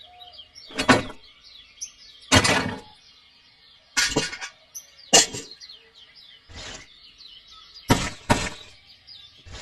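A run of about seven clattering knocks, unevenly spaced and two in quick succession near the end, over faint bird chirping.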